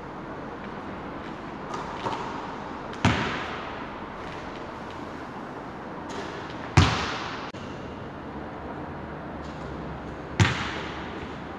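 A basketball hitting hard three times, about three and a half seconds apart, with a couple of lighter knocks before the first. Each hit echoes on through a large sports hall.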